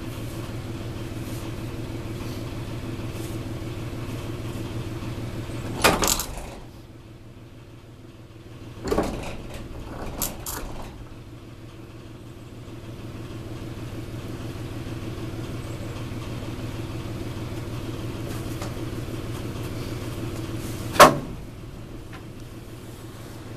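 An engine idling steadily, a low even drone that drops away for a few seconds in the middle. Sharp knocks come about a quarter of the way in, twice more near the middle, and loudest near the end.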